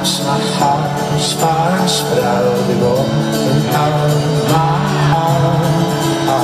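A live folk-rock band playing through a large outdoor PA, heard from the crowd on a phone: strummed acoustic guitars driving a steady rhythm under a sung melody.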